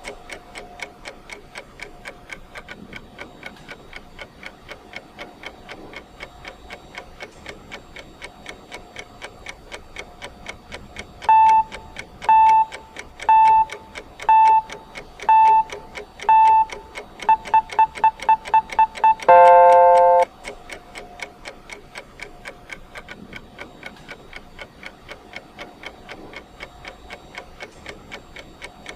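Countdown timer's ticking clock sound, steady throughout. Partway through comes a run of electronic beeps: six beeps about a second apart, then a quick run of short beeps, ending in one longer, lower beep lasting about a second.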